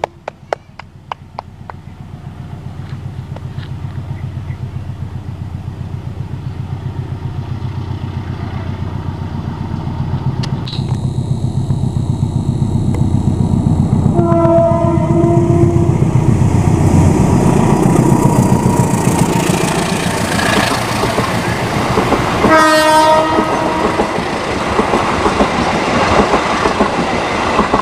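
CC 201 diesel locomotive approaching, its rumble building steadily and peaking just after the first horn blast. Its horn, a CC 202-type horn trumpet, sounds a blast of about a second and a half some 14 seconds in, and a shorter blast about 23 seconds in.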